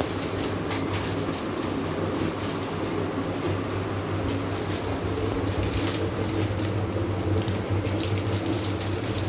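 Crinkling and clicking of an Oreo biscuit packet's foil-lined wrapper as it is torn open and handled, with biscuits dropped into a steel mixer jar. Under it runs a steady low mechanical hum.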